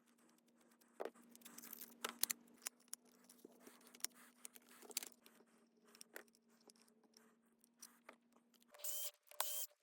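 Faint handling of tool parts: scattered light clicks and scrapes of small metal and plastic pieces being fitted together, over a faint steady hum that stops near the end. A few louder rasping scrapes come in just before the end.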